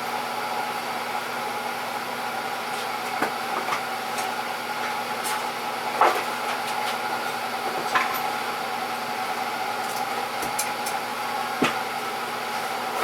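Old transformer-type battery charger humming steadily while it powers an electrolysis rust-removal bath, with a few short sharp knocks or clicks spread through.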